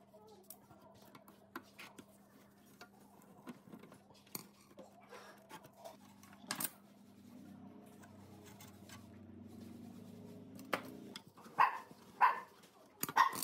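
Screwdriver tip clicking and scraping on the rusty screws and sheet metal of an old mini gas stove, over a steady low hum. Near the end a dog barks several times, louder than the work.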